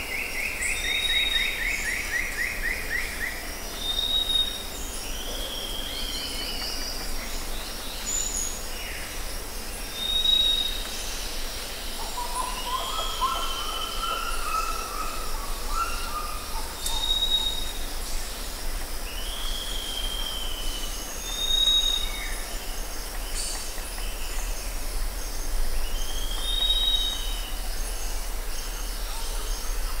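Amazon rainforest birds calling over a steady high insect buzz and a low hum. A rapid falling trill comes in the first few seconds, short high whistles repeat every few seconds with slurred downward calls between them, and a lower warbling phrase sounds midway.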